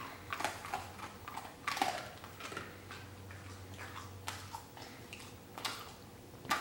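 A dog chewing a small treat: faint, irregular little crunches and clicks.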